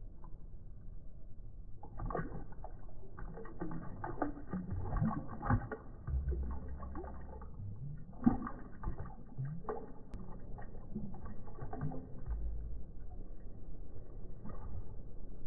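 A Belgian Tervuren dog lapping water from a glass bowl, slowed down: a deep, drawn-out run of irregular splashes and gurgles, with one sharper splash about eight seconds in.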